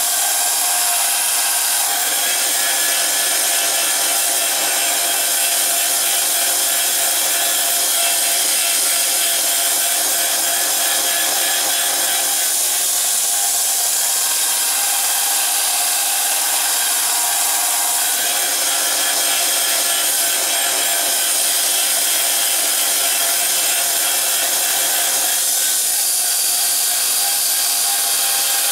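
Small benchtop belt sander running steadily with a steel knife blade held against its abrasive belt, grinding the blade's bevels; the grinding tone shifts a few times as the blade is moved on the belt.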